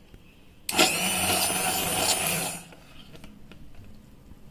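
Hand-held immersion blender whirring as it purées cooked tomatoes in a pressure-cooker pot. It starts under a second in, runs with a high whine for about two seconds, then stops.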